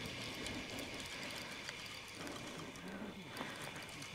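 Faint, steady outdoor ambience of gentle water lapping and trickling against shoreline rocks.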